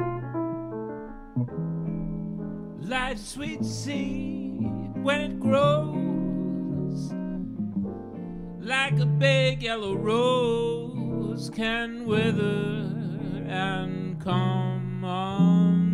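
Jazz ballad played on piano and guitar, with no lyrics sung: sustained piano chords, and from about three seconds in a guitar line with bent and sliding notes over them.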